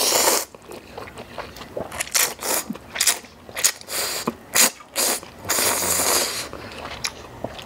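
A person slurping instant ramyeon noodles off chopsticks: a loud slurp at the start, a run of short sharp sucking sounds in the middle, and another long slurp about six seconds in.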